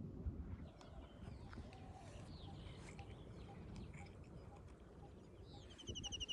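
Faint birdsong over a low background rumble: scattered thin chirps, then a rapid high trill starting near the end.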